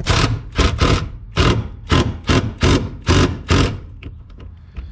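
Cordless 20V impact gun hammering a bolt tight in about nine short trigger bursts. The bursts stop near four seconds in, once the bolt is snugged up.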